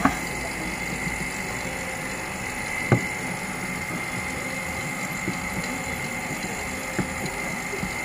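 A 1,500 rpm refrigeration vacuum pump running steadily with a hum and a thin high tone, the AC system already pulled down to vacuum. Three short clicks stand out over it: at the start, about three seconds in and about seven seconds in.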